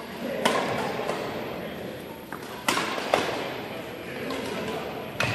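Badminton rackets striking a shuttlecock during a rally: four sharp hits, one about half a second in, two close together near the middle, and one near the end. The hits echo around a large gym hall.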